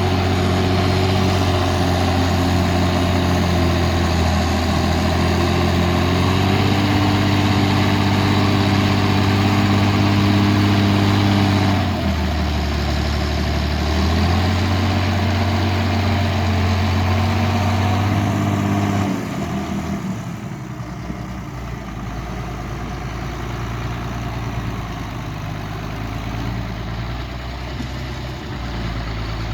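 Case 1694 tractor's six-cylinder diesel engine working while ploughing with a four-furrow plough. Its note dips for about two seconds around twelve seconds in and recovers, then turns quieter about nineteen seconds in.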